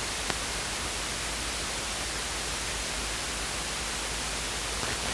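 Steady static hiss of a light aircraft's radio and intercom audio feed between transmissions, with one faint click shortly after the start.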